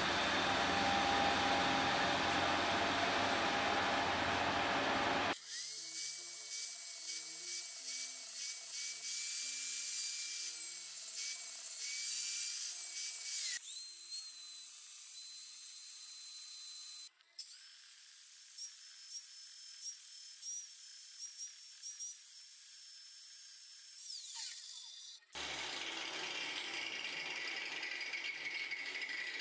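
Angle grinder with a grinding disc running on a steel hammer head held in a vise. It gives a steady high whine that jumps higher twice, then glides down and stops as it spins down. There is rough, broad grinding-type noise before and after the whine.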